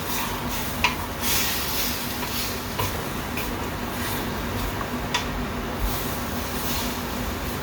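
A few light clicks and knocks of kitchen utensils against cookware: one right at the start, one about a second in, one near three seconds and one just after five. Under them runs a steady background hum.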